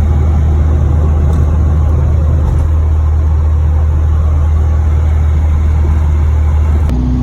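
Classic Mini's 998 A-series engine with a 12G 940 head and HIF38 carburettor running steadily, freshly tuned with a new coil, a new distributor vacuum unit and a modified carb needle. A loud, even low drone that changes abruptly near the end.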